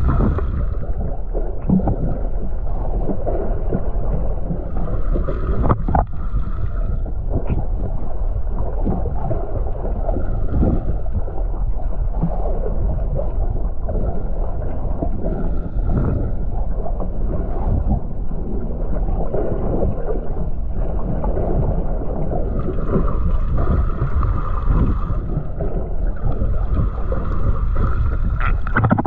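Underwater sound from a submerged camera: a steady low rumble of moving water, with a brighter hiss that swells and fades about every five seconds.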